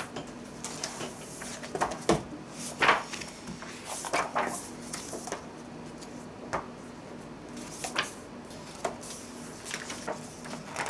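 Scattered light clicks and knocks, about a dozen at uneven intervals, over a faint steady hum.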